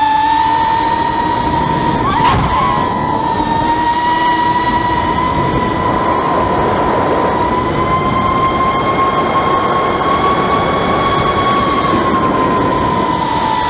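Quadcopter's electric motors and propellers whining steadily in flight, heard from the onboard camera with wind noise over it. The pitch wobbles briefly about two seconds in, then holds.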